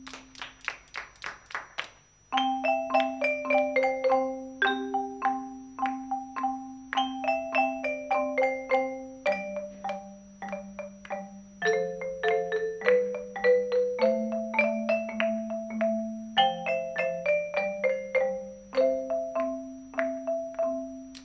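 Student percussion ensemble playing a slow tune on marimba and xylophone: struck mallet notes carry the melody over long held low notes. It opens with about two seconds of quick, dry, unpitched taps, and the full ensemble comes in loudly just after two seconds.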